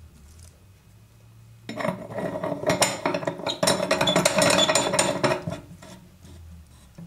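Hard objects clinking and clattering rapidly, starting about two seconds in and lasting about four seconds.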